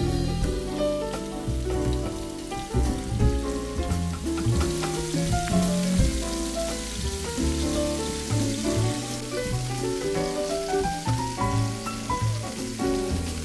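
Tilapia strips sizzling as they fry in a hot pan, under instrumental background music. The sizzle grows denser about four seconds in.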